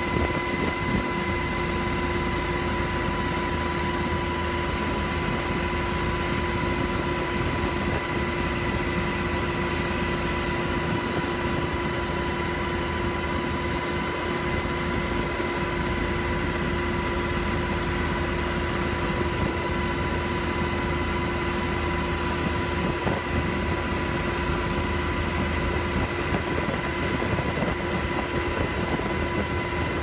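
Helicopter in flight, heard from on board: a steady engine and rotor noise with a constant high-pitched whine.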